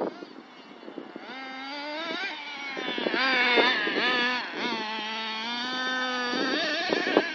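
Small nitro engine of an FTX Carnage radio-controlled truck revving as it is driven, its pitch rising and falling with the throttle, loudest a few seconds in, then holding a steadier high note before easing off near the end.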